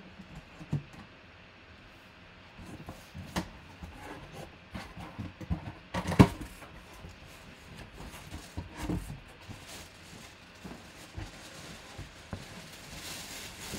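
Cardboard shipping box being handled and its flaps pulled open: irregular scrapes, knocks and rubbing of cardboard, with the loudest knock about six seconds in. Near the end a crinkling rustle of the plastic wrapping inside.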